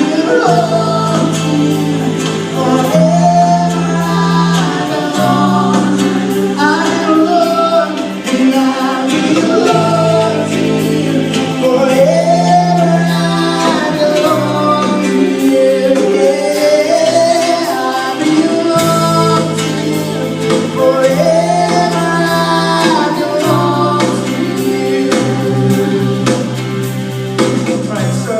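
Gospel worship song: voices sing bending, drawn-out lines over long, held low bass notes. The music stops abruptly at the very end.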